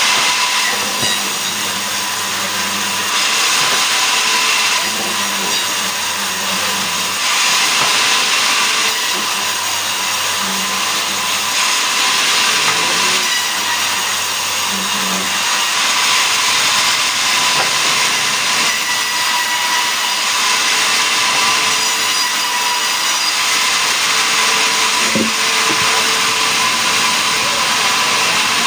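Sawmill machine running and sawing mahogany into boards, a steady loud whirring with a high whine that swells and eases every few seconds.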